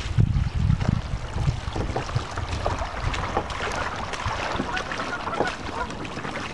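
Wind gusting on the microphone, strongest in the first second or so, over small splashes and clicks of water lapping around a kayak.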